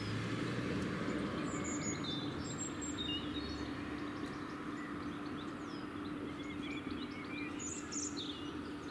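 Outdoor background noise with a faint steady low hum, and small birds giving scattered short chirps and calls.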